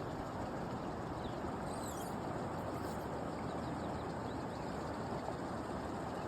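Steady rush of river water, with a few faint high bird chirps between about one and four seconds in.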